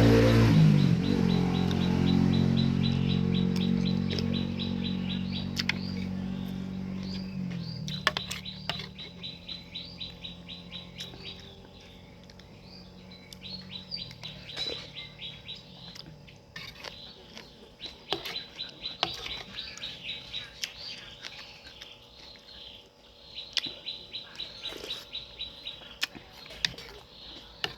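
A passing motorcycle or car fades away over the first several seconds. Then a bird chirps in repeated fast trills, each a couple of seconds long, with scattered sharp clicks between them.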